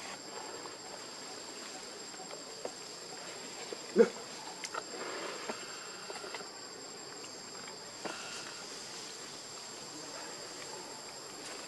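Steady high-pitched drone of insects. A brief louder sound comes about four seconds in, with a few softer short sounds just after it.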